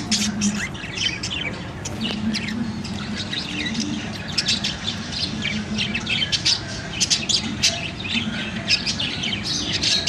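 Cockatiel chicks in the nest chirping, a quick run of short, harsh calls several times a second, over a low hum.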